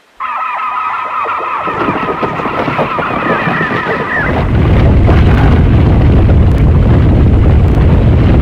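Giant-monster roar sound effect: a harsh, rapidly pulsing roar for about four seconds, then a loud deep rumble.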